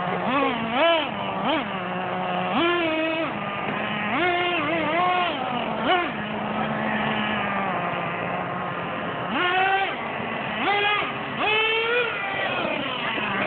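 Small engine of a Traxxas gas-powered RC truck idling and being revved in short bursts, its pitch jumping up, holding briefly and dropping back to a steady idle several times.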